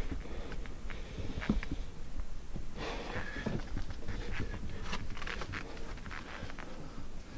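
A climber panting while scrambling up rock, with irregular scrapes and knocks of gloved hands and boots on the stone; the breaths come strongest about three and five seconds in.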